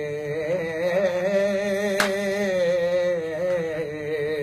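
A man singing unaccompanied-sounding Punjabi folk verse, holding one long, wavering note, with a brief click about two seconds in.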